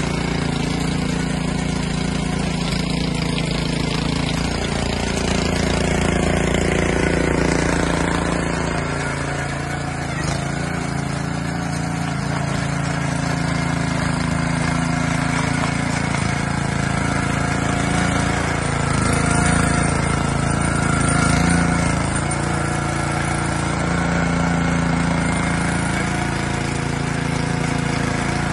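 Honda FG500 rotavator's four-stroke petrol engine running steadily as its tines churn through soil, the engine note swelling a couple of times.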